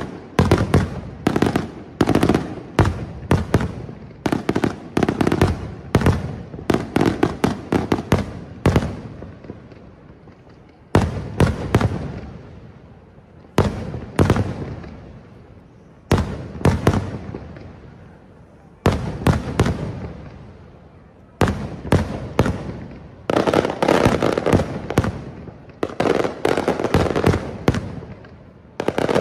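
Aerial firework shells bursting overhead in rapid volleys of sharp bangs, each trailing off. Partway through the volleys thin to single reports every couple of seconds, then build back to a dense barrage near the end.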